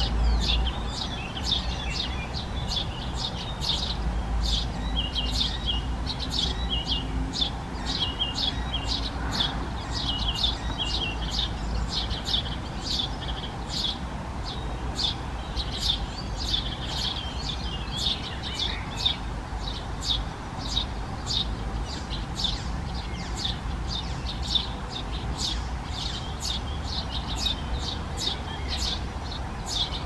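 Eurasian tree sparrow nestlings giving begging calls from a nest box: short high chirps repeated about twice a second.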